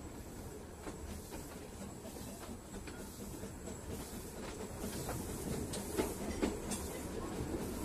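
2 ft gauge train running slowly behind the 1917 Kerr Stuart steam locomotive Stanhope: a steady running rumble with wheels clicking over rail joints, the clicks louder and more frequent over the last few seconds.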